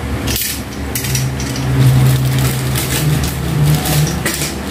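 Dish rack parts clattering and clear plastic wrapping rustling as the pieces are unpacked by hand, with a few sharp knocks.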